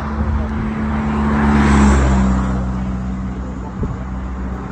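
A road vehicle's engine hum passing by, swelling to its loudest about two seconds in and dropping slightly in pitch as it goes past.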